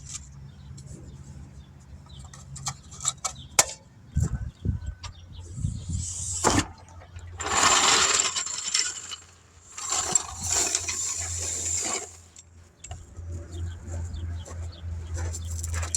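Sharp metallic clinks and knocks, then a car engine running steadily with a low hum that grows stronger toward the end. Two loud bursts of hiss come in the middle.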